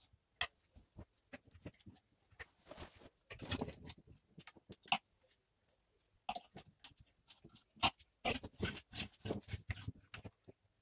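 Clothes being sorted out of a wardrobe: irregular clicks and knocks of hangers with bursts of fabric rustling.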